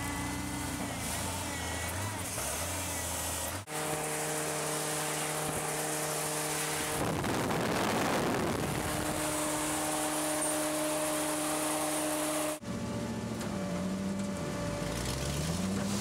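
Mechanical prune harvester running, its engine and conveyor giving a steady whine. About halfway through, a rushing rattle of plums tumbling off the conveyor into a wooden bin. Near the end the engine pitch dips and rises.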